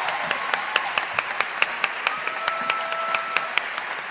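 Theatre audience applauding at the end of a live performance, individual sharp claps standing out over the general clapping.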